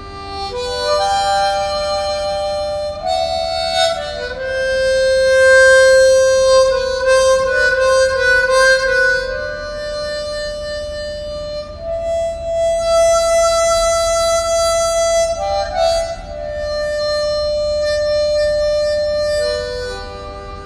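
Solo harmonica playing a slow, sad melody of long held notes.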